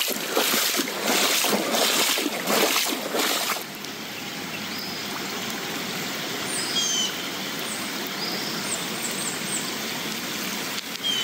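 Floodwater from a river overflowing onto a road, rushing steadily; for the first few seconds it is louder and comes in uneven surges. A few quick, high chirps sound over it in the second half.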